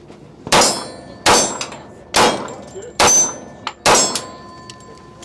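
Five shots from a Kimber Rapide .45 ACP 1911 pistol, fired evenly a little under a second apart. Several are followed by a short ringing tone from steel targets being hit, the last ring lingering.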